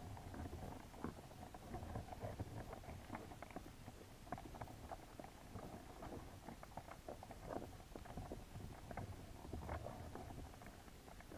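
Muffled underwater ambience picked up by a submerged GoPro: a faint low rumble of moving water with scattered irregular clicks and ticks.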